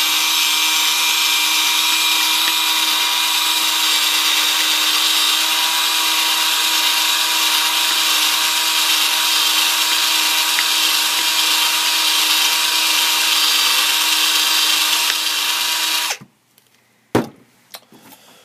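Cordless drill running steadily at one speed, its bit reaming out the blade slot of a wooden saya to widen it for a knife that fits too tightly; the drill stops abruptly about sixteen seconds in. A sharp knock and a few light clicks follow.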